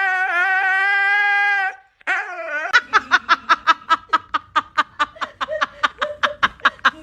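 A dog howling in one long, steady note, then after a short break giving a fast, even run of high yips, about five a second.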